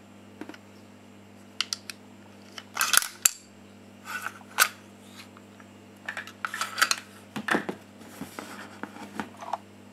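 Irregular hard clicks, clacks and short scrapes of a VFC HK417 gas blowback airsoft rifle being taken apart by hand, its bolt carrier sliding out of the upper receiver, with a steady low hum underneath.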